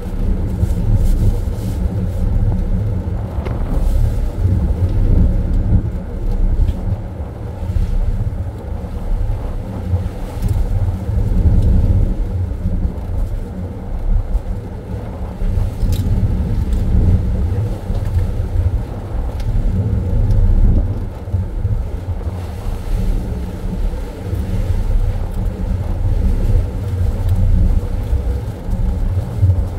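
Steady low rumble with a constant hum from a ship's running machinery, its level wavering unevenly throughout, with a couple of faint clicks.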